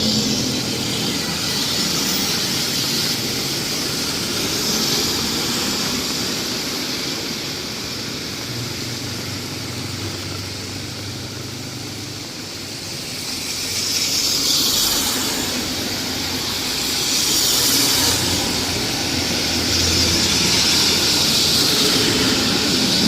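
Street traffic passing on a rain-wet road: vehicle engines running and tyres hissing on the wet surface, swelling as vehicles go by, several times in the second half.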